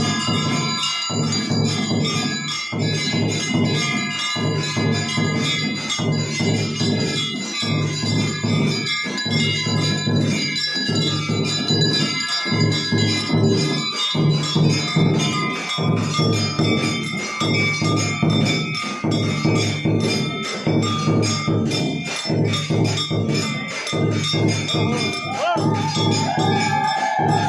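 Temple bells ringing continuously over rhythmic devotional music, the music pulsing about every one and a half seconds. A wavering high-pitched tone comes in near the end.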